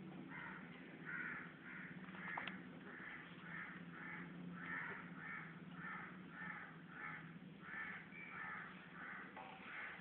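Ringneck parakeet calling over and over in short, harsh squawks, about two a second, over a faint steady low hum.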